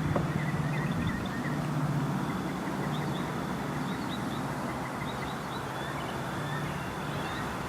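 A steady low engine drone, with small birds chirping over it.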